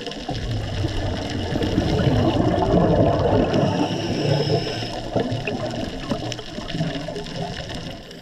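Scuba diver's exhaled air bubbling and rushing past the underwater camera, swelling about two to four seconds in and then slowly fading.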